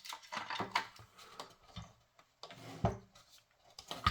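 Irregular light clicks and knocks of small hard parts being handled, with short pauses between them.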